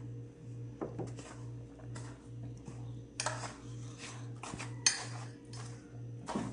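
A hand mixing a dry flour mixture in a large plastic basin: irregular scraping swishes and light knocks against the basin, the sharpest about five seconds in. A low hum pulses underneath just under twice a second.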